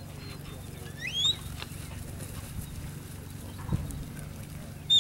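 A sharp whistle rising quickly in pitch about a second in, a stock-dog handler's herding whistle command to the working cow dog, over a steady low hum. A short low sound follows near four seconds, and two quick high whistle notes come at the very end.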